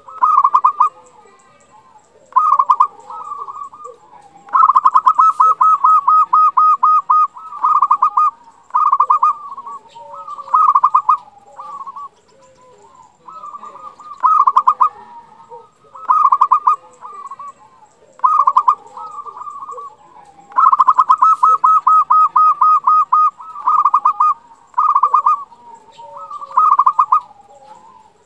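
Local zebra dove (perkutut) cooing its song in short bursts of rapid, staccato notes. A longer fast-pulsed trill comes twice, and the phrase sequence repeats about every sixteen seconds.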